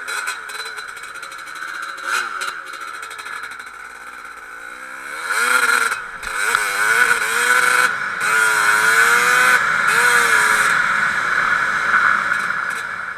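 1991 KTM 250 ISDT two-stroke dirt bike engine under way, heard from the rider's helmet camera; the engine note rises and falls several times as it is revved through the gears, louder from about a third of the way in.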